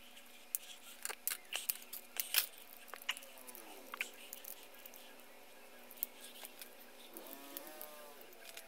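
Sharp clicks and snaps of plastic Gunpla parts and runners being handled, coming thick and fast in the first few seconds and then sparser.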